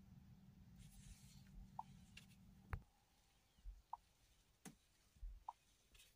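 Near silence: a faint low hum that cuts off about three seconds in, then a few faint clicks and short blips.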